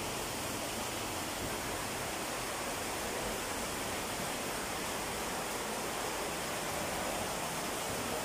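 Steady rushing of water from the cave's underground river, an even hiss with no breaks.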